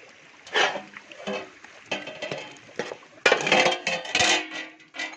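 Metal cooking pot being opened and a ladle stirring and scraping through boiled beef, with clinks and clatters of metal on metal that are busiest about three seconds in.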